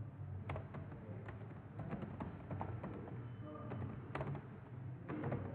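Typing on a computer keyboard: irregular key clicks, with a cluster of louder clicks near the end, over a low steady hum.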